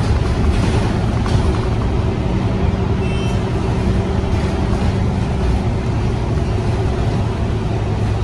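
Scania K230UB bus's five-cylinder diesel engine running with the bus under way, heard from inside the passenger saloon: a steady low drone over road noise, with a steady higher hum joining about two seconds in.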